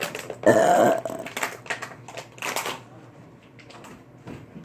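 A person burping loudly once, about half a second in, after chugging water; a few shorter clicks and rustles follow.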